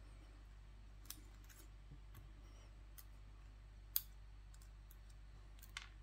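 A few light, sharp clicks of steel tweezers working pins out of an Assa oval lock cylinder and setting them down on a mat, the loudest about four seconds in.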